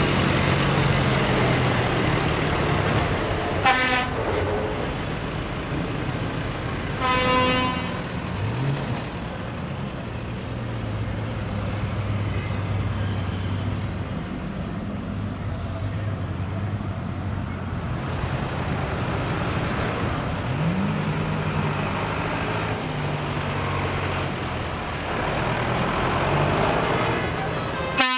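Tractor diesel engines running steadily, with a vehicle horn tooting twice, briefly about four seconds in and a longer blast about seven seconds in. An engine revs up briefly a couple of times.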